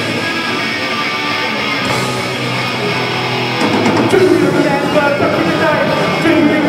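Live punk rock band starting a song, amplified electric guitar leading. About three and a half seconds in, the rest of the band comes in and it gets louder.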